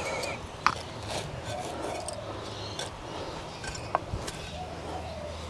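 Hand trowel digging and scraping in garden soil as seedlings are planted, with two sharp taps, one under a second in and another about four seconds in.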